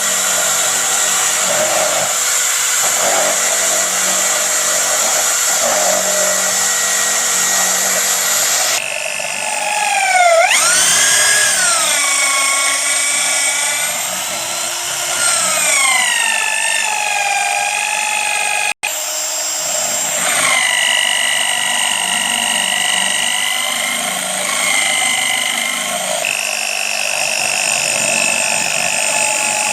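An electric drill running continuously with a high whine whose pitch rises and falls as its speed changes.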